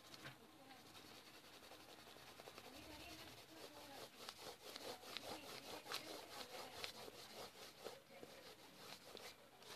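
Faint scratching of a pastel stick drawn across paper in quick back-and-forth strokes, busiest through the middle.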